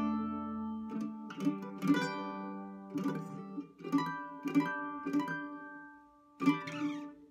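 Mandolin picked and strummed in a slow melody, each note and chord ringing out and decaying, heard through a clip-on L.R. Baggs Radius pickup and a small Yamaha THR amp. The playing thins out near the end, with one last strum ringing away.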